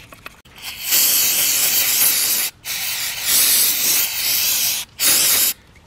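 Aerosol can of carburetor cleaner sprayed directly onto a throttle body to clean it: a loud hiss in three bursts, two long ones and a short one near the end.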